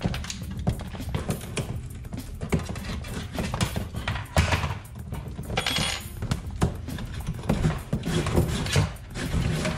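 Electrical cable being hand-pulled through a drywall cavity and out of the electrical box, with repeated rustling, scraping and clicking as it rubs on the wall and the box edge, over background music.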